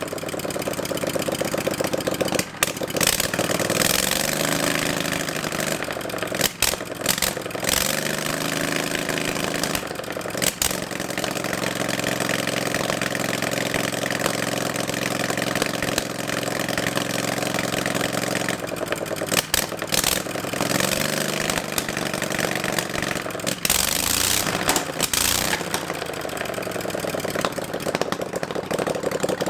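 A motor running at changing speed, its pitch rising and falling several times and holding steady for several seconds in the middle, with scattered clicks and knocks.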